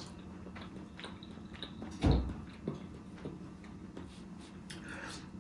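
Close-up mouth sounds of someone chewing spaghetti: small wet clicks and squishes, with one louder, low thump about two seconds in.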